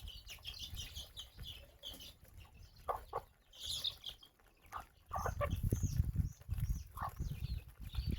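Chickens clucking and calling in many short, high notes, with a low rumble starting about five seconds in.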